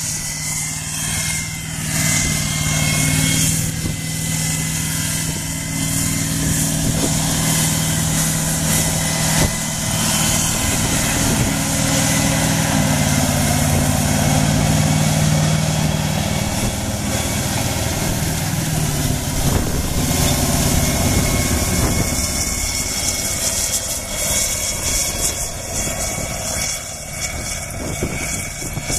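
International paddle scraper's 573 turbo diesel V8 running under load as the machine drives, puffing black smoke; the engine note rises for a few seconds about halfway through, with a thin steady high whine above it.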